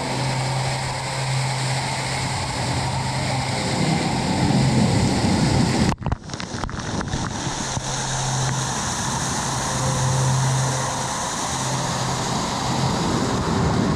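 Steady rush of water falling from a water-park cave waterfall into the lazy river, with a low hum that comes and goes. About six seconds in the sound cuts out abruptly, water spatters in a few sharp ticks against the camera, and the rushing picks up again.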